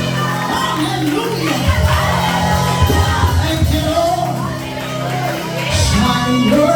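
Live worship music: voices singing over a band with a steady bass line and a beat.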